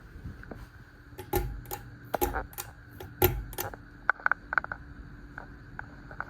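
Sonica hugger ceiling fan being switched to high speed: a quick run of sharp clicks and taps, some with a dull thump, then lighter ticks, over the fan motor's steady hum.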